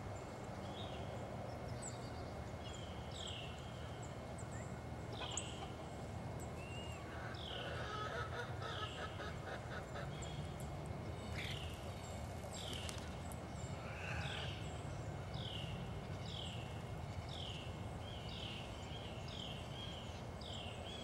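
Backyard songbird calls: one bird repeats a short downslurred note, first every couple of seconds, then faster, about one a second or more, in the second half. There is brief chattering a few times, over a steady low rumble.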